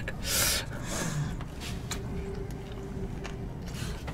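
A woman's short, breathy snort of laughter near the start, trailing off into low room noise.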